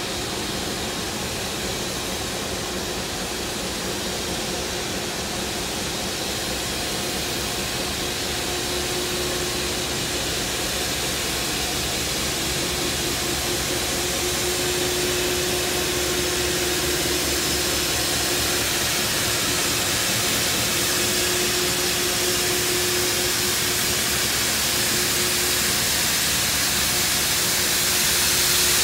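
Steady hiss of steam escaping from NSW C38 class streamlined steam locomotive 3801 standing at the platform, growing louder towards the end, with a faint steady hum underneath.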